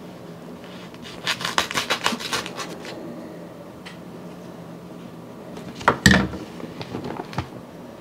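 Utility knife scraping and slicing through a dust-packed paper vacuum bag: a quick run of scratchy strokes a little over a second in, then paper handling with one loud crackle about six seconds in as the bag's top is pulled back.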